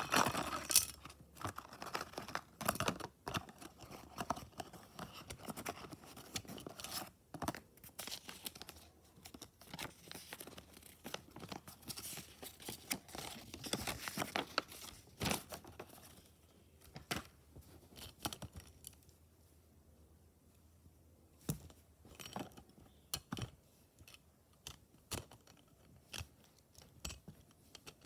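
Wrapper of a random Beyblade booster being torn and crinkled by hand, with paper rustling, for the first half or so. After that come sparser light clicks and taps of hard plastic Beyblade parts being handled.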